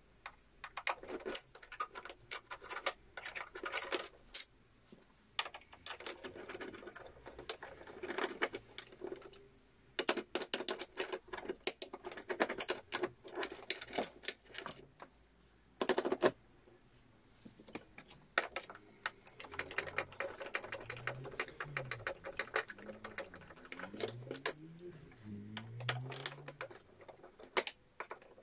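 Screwdriver working small flathead screws out of a plastic appliance housing: a dense run of small clicks, ticks and scrapes of the blade in the screw slots, stopping and starting. In the second half come short low squeaks.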